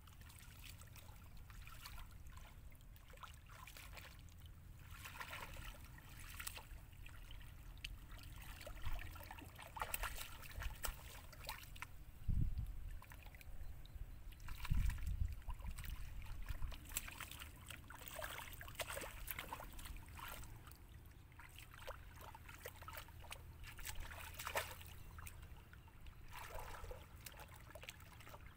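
Hands groping and splashing in shallow muddy water, with many small irregular splashes and trickles. Two stronger low thumps come about 12 and 15 seconds in.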